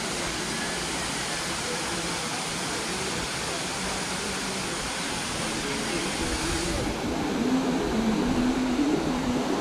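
Waterfall's water falling with a steady rushing sound, its flow low in late summer. People's voices are faintly heard over it, growing louder in the second half.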